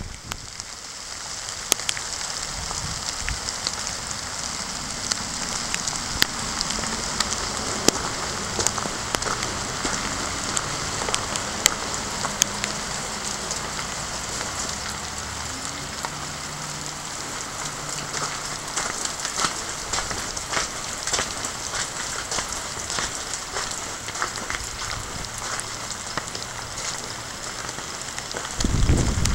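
Steady rain falling, with many sharp raindrop taps close to the microphone. Near the end, wind buffets the microphone with a low rumble.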